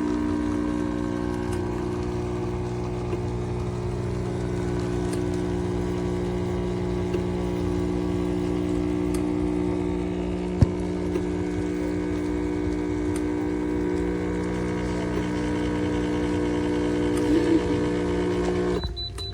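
Espresso machine pump humming steadily while a shot is pulled and the coffee stream runs, then switching off abruptly near the end. A single sharp click comes about halfway through.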